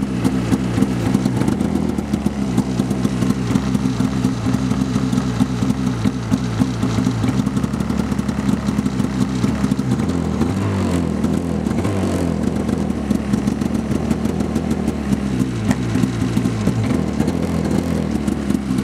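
2004 Polaris XC600 SP snowmobile's two-stroke twin engine idling steadily, freshly started for the first time that day and running smoothly.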